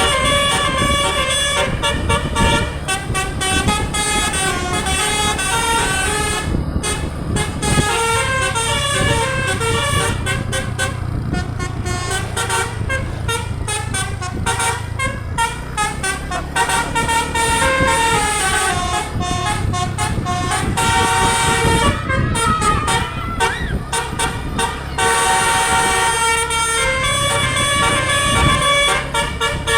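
DAV musical air horn ("telolet basuri") playing a melody of quick stepping notes, over a low vehicle engine rumble.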